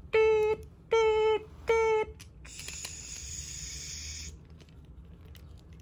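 Three short beeps of the same pitch, evenly spaced like a reversing alarm, as a toy dump truck is backed up. They are followed by about two seconds of a high whirring hiss.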